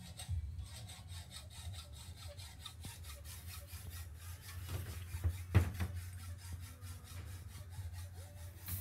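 Hacksaw cutting through steel rebar in quick, even back-and-forth strokes, with one sharp metallic knock about halfway through.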